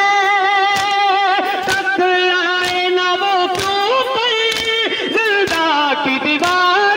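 A male reciter singing a noha through a microphone in long, drawn-out held notes, with mourners beating their chests (matam) in a steady rhythm of about one slap a second.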